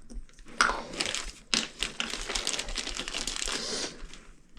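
Plastic packaging crinkling and crackling as new toilet closet-bolt caps are unwrapped, dying away shortly before the end.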